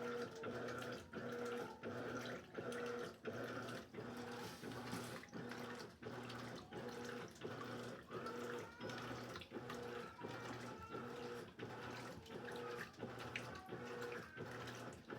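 Electrolux LED14 top-loading washing machine agitating: the motor hum switches on and off in a quick, even rhythm of about one and a half strokes a second as the agitator reverses, with water sloshing in the tub.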